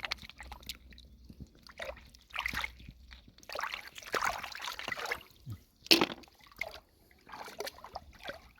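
Lake water sloshing and splashing in irregular bursts as hands work through it, picking for snails and clams, with one sharper splash about two-thirds of the way through.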